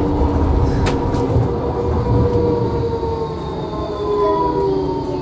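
Tram running, heard from inside the car: a steady low rumble of wheels on rails, with whining tones that slowly fall in pitch. A single sharp click about a second in.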